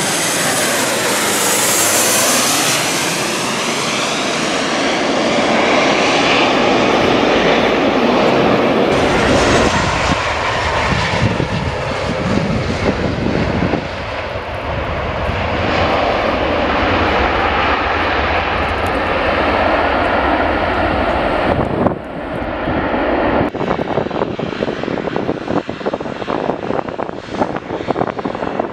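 Boeing 737-800 jetliner's CFM56 turbofan engines, loud, as it passes low overhead on approach, with a sweeping whoosh in the first few seconds as it goes over. After that comes steady jet engine noise from 737s on the runway, which changes abruptly about 22 seconds in.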